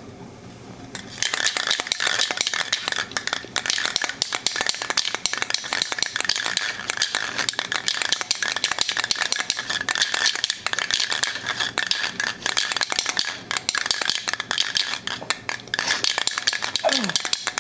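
Aerosol spray can being shaken hard, the mixing ball inside rattling fast and without a break; the rattling starts about a second in.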